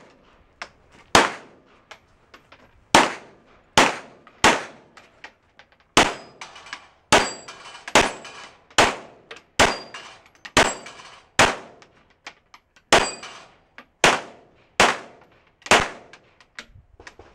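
Semi-automatic pistol firing a string of about sixteen shots, roughly one every second or less with a few brief pauses. Several shots are followed by a thin, short ring of steel targets being hit.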